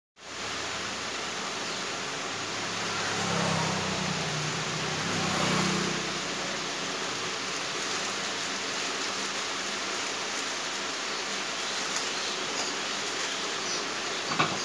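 Chaoba 2800 hair dryer running: a steady rushing blow of air and fan noise. There is a short click near the end.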